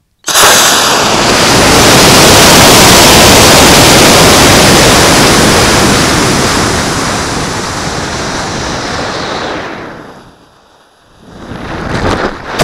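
Model rocket's Cesaroni H110 solid motor firing on launch, with rushing air: a loud roar that starts abruptly, then slowly fades over several seconds, dropping away about ten seconds in before rushing noise returns near the end.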